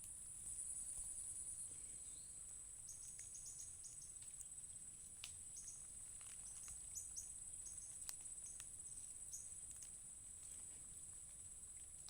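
Insects trilling steadily in a high, continuous buzz, with short higher chirps and a few faint clicks scattered through it.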